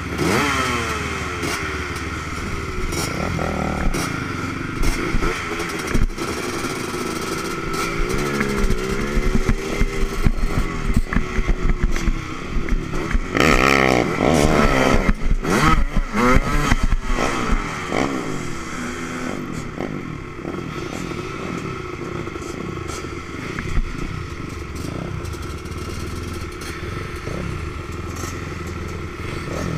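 Yamaha three-wheeler's engine running close up, revved up and down repeatedly with the hardest blipping in the middle, then settling to a steadier, lower run for the last ten seconds or so as the machine sits at the start line.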